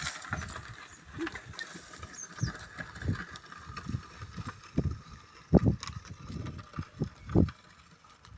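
A pair of Hallikar oxen walking with a plough: irregular low thuds of hooves on soil, one every half second to a second, the loudest about five and a half and seven and a half seconds in.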